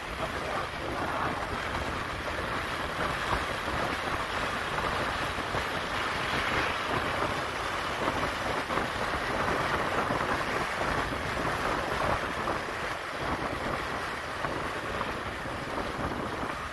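Steady rushing noise with wind buffeting the microphone.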